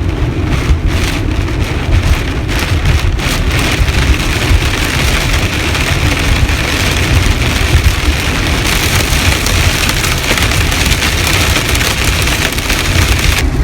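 Heavy rain pounding on a moving car, with the rumble and hiss of tyres on the flooded road. The downpour is steady and loud.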